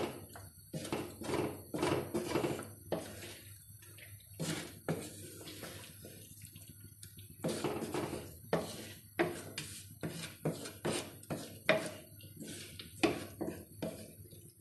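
Wooden spatula stirring thick chicken curry in an aluminium pot, scraping and knocking against the pot's sides and bottom in irregular strokes, with a sparser spell a few seconds in.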